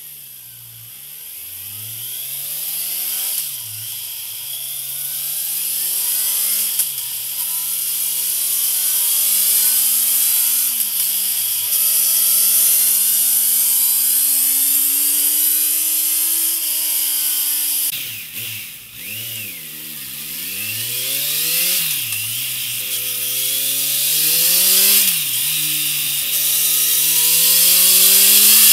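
Kawasaki Z900's inline-four engine revved at a standstill through its stock exhaust. The throttle is blipped so the pitch rises and drops back several times, then climbs for several seconds. About two-thirds through, the sound switches to the same engine through a MIVV MK3 slip-on silencer, again blipped up and down and climbing near the end.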